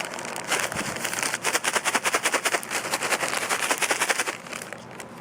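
A bag of seasoned chickpea snacks being shaken: the chickpeas rattle rapidly against each other and the bag, stopping about four seconds in.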